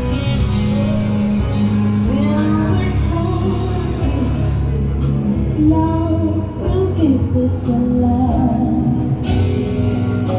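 Music with a singer over a steady, heavy bass line.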